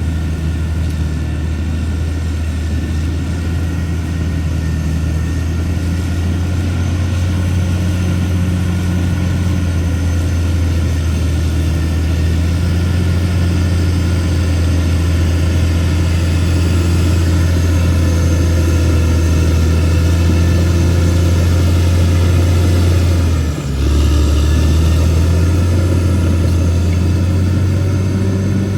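CAT D6R XL bulldozer's diesel engine running steadily under work, with a loud low drone. It dips briefly and then picks up again about three-quarters of the way through.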